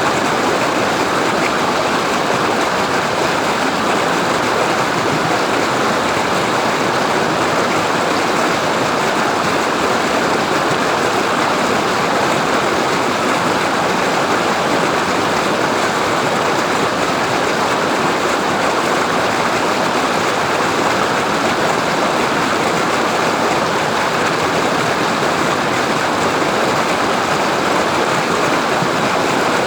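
Waterfall: a steady, loud rush of falling water with no change.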